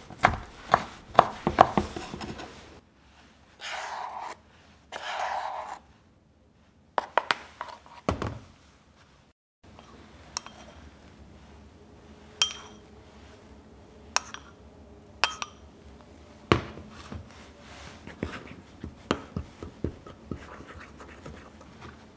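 A kitchen knife chopping yuzu peel on a wooden cutting board, a quick run of cuts over the first couple of seconds. Later a metal spoon clinks a few times with a short ring against a ceramic bowl, then scrapes and taps as it works yuzu juice into powdered sugar for an icing.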